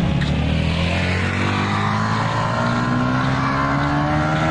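Motorcycle engine running, its pitch climbing steadily as it speeds up.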